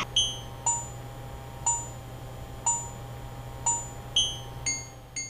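A slow run of bright, bell-like chime notes, each struck and left ringing. They come about once a second at first, then faster, about two a second, near the end. A steady low hum lies underneath.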